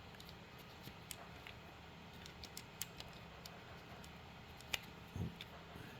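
Faint scattered clicks and light taps of small 3D-printer parts being handled as a gear is pushed back into its gearbox, with a sharper click and a soft knock about five seconds in.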